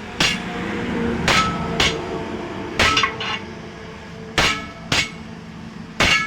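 Hammer blows on a truck wheel's steel rim while a radial tyre is being taken off it: about eight irregularly spaced strikes, each with a short metallic ring.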